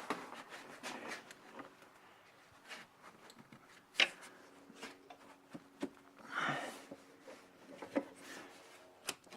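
Scattered light clicks and knocks of metal hinge parts and hand tools being handled while a rear window hinge is lined up. There is a sharp click about four seconds in, and a brief rub or rustle a couple of seconds later.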